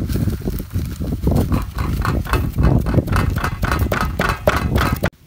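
A plastic bag crinkling as its dried shrimp is shaken out into a wooden mortar, over a steady run of dull knocks about three a second. The sound stops abruptly near the end.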